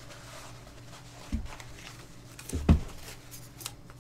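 Handling noise as a small fabric throw rug is unfolded: soft rustling and two dull thumps about a second and a half apart, the second louder.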